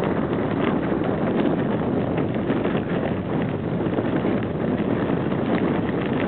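Wind rushing over the microphone of a camera carried on a moving bicycle, with the tyres crunching over a gravel path and many small clicks and rattles from the bike.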